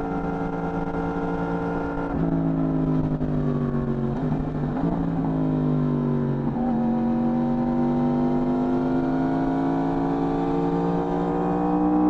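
Yamaha R1 inline-four engine on its stock exhaust, running under load. The revs hold, drop away in the middle with a couple of brief disturbances, then climb steadily in a long rising pull.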